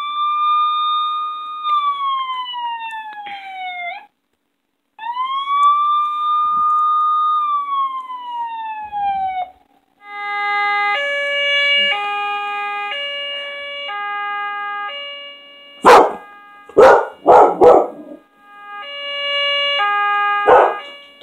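Recorded emergency vehicle siren played through a small Bluetooth speaker: two long wails that rise, hold and fall, then a hi-lo two-tone pattern. About three-quarters of the way through, a dog barks loudly four or five times over it.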